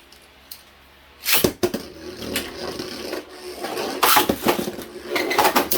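Two Beyblade spinning tops, Takara Tomy Infinite Deathscyther and Burn Hyperion, launched into a plastic stadium with a sudden rip about a second and a half in. They then spin, scrape and clatter against each other and the stadium walls with repeated small clicks and hits.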